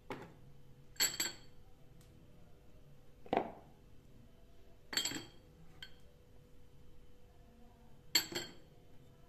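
Small glass prep bowls clinking as they are handled and set back among each other in a tray. Three sharp ringing glass clinks and one duller knock come a few seconds apart, with a couple of faint ticks between.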